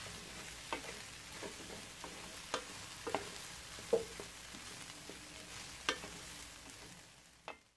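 Charred corn kernels and diced carrots sizzling in a stainless steel pan while being stirred, with a steady sizzle and several sharp clicks and scrapes as the utensil strikes the pan. The sizzle fades near the end.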